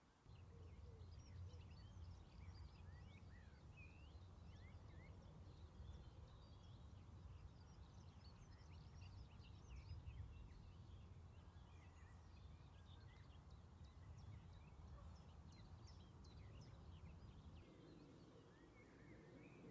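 Faint outdoor ambience: many small birds chirping and twittering throughout, over a low steady rumble that starts just after the beginning and eases off near the end.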